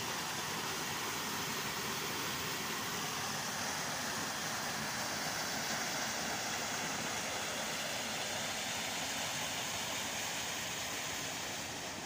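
Steady rush of a small waterfall pouring off a ledge of stone slabs into a pool, easing slightly near the end.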